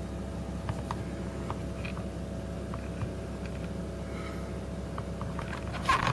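Steady low hum from a phone's microphone, with scattered small clicks and a louder burst of rustling and clicking about six seconds in, as a hand handles the flip phone.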